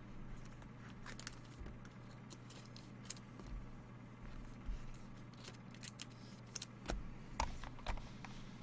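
Trading cards and packs being handled: scattered light clicks, snaps and rustles, denser in the last couple of seconds, over a steady low hum.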